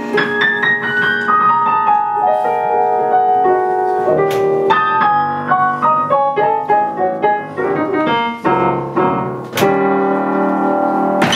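Solo jazz piano on a grand piano: a line of notes stepping downward over the first few seconds, then quicker, busier playing after a strong accent about four seconds in, and a loud full chord near the end.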